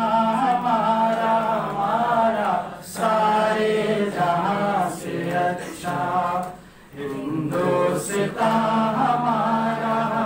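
A man singing a slow melody with long held notes, pausing briefly about three and seven seconds in.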